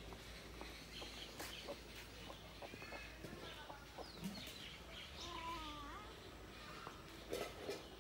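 Ducklings peeping in short, high, falling chirps while the mother hen clucks softly, with one longer, lower call about five seconds in.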